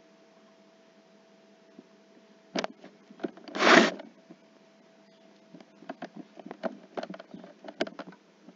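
Faint steady hum with scattered short clicks and taps, and one brief loud noisy burst, under half a second long, about three and a half seconds in.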